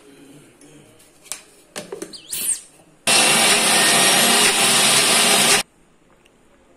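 Electric mixer grinder running with its steel jar of soaked toor dal, green chillies, garlic and salt: a loud steady grind lasting about two and a half seconds that cuts off abruptly. A few light clicks and knocks come before it starts.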